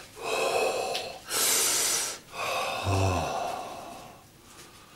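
A man breathing hard through his open mouth from the burn of pure capsaicin pepper extract: two long, loud breaths, then a short groan falling in pitch about three seconds in that trails off into a fading exhale.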